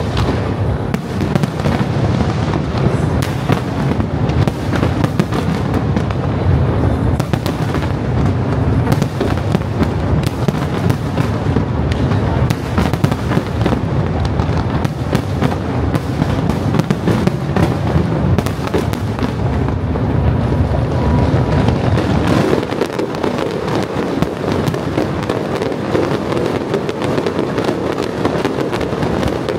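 A close-range fireworks display: a rapid, unbroken stream of shell bursts and crackles over a deep rumble, the rumble easing about three-quarters of the way through while the crackling goes on.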